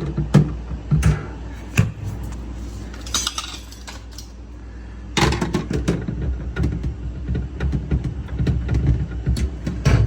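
Handling noise of hard parts: separate clinks and knocks, then a denser run of rattling and clattering from about five seconds in.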